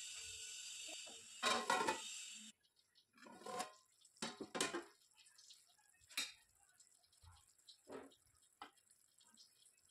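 Kitchen cooking sounds: a steady hiss with a louder noisy stretch that cuts off abruptly about two and a half seconds in, followed by scattered light taps, clicks and drips.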